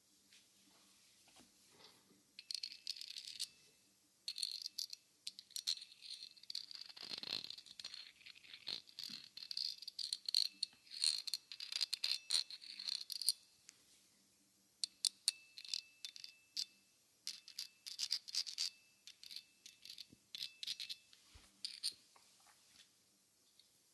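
Quick rattling and clicking close to a binaural microphone, with a faint metallic ringing, in two spells: from about two to thirteen seconds in and from about fifteen to twenty-two seconds in.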